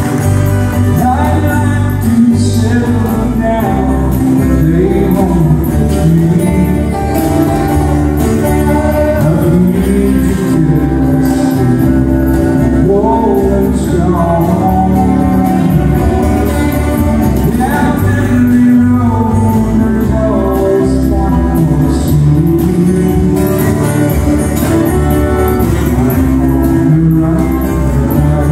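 Live country-western music: a man sings over strummed acoustic guitars and a hand drum.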